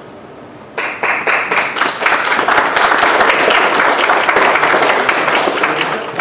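Audience applauding, starting suddenly about a second in and tailing off near the end.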